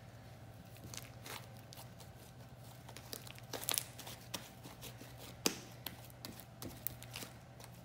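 White glue-and-shaving-foam slime being kneaded and squeezed by hand, giving irregular sticky pops and crackles, loudest in the middle of the stretch.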